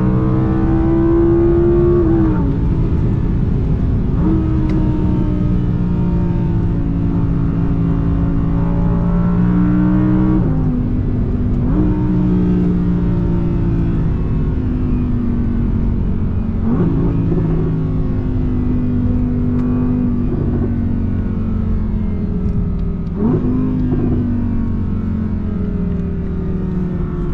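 Audi R8 V10 Plus's mid-mounted V10 engine pulling hard under acceleration. Its note rises and falls and jumps abruptly several times as gears change.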